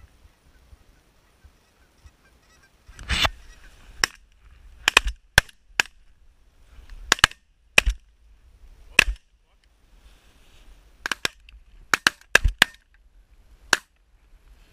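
Several hunters' shotguns firing a rapid volley at Canada geese, about fifteen sharp shots starting about four seconds in and running to near the end, with geese honking between the shots.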